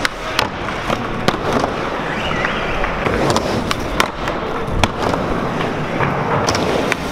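Skateboard wheels rolling on a skatepark surface, with trucks grinding along a ledge's metal edge. A string of sharp board clacks, about ten, is scattered through.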